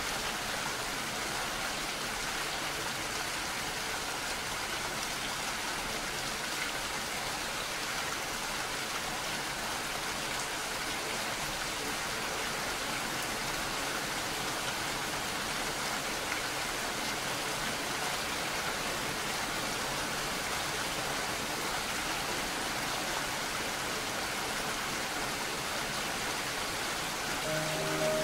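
Shallow water spilling over a low ledge in a thin cascade, a steady even splashing rush.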